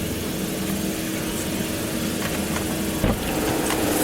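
Car running, heard from inside the cabin: a steady low rumble and hum, with a single knock about three seconds in.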